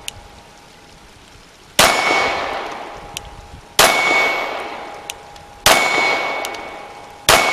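Four 9mm pistol shots from a Glock 17, about two seconds apart, each followed by the long ring of the struck steel target slowly fading away.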